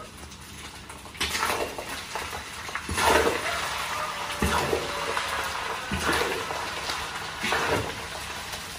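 Metal spatula scraping and turning rice in a large iron wok of hot oil, the rice sizzling as it fries into a crust. There are about five strong scrapes, one every second and a half or so.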